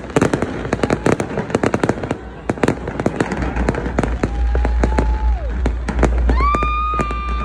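Fireworks display: aerial shells bursting with rapid popping and crackling, many reports a second. From about four seconds in, two long held high notes sound over the crackle, the second higher and louder.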